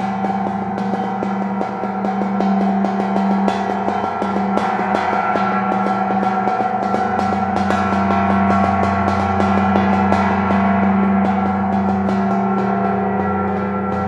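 26-inch vintage Zildjian Turkish tam-tam played in a continuous roll with two mallets, about three or four strokes a second, building a sustained ringing wash with a strong low hum. It swells toward the middle and eases off a little near the end.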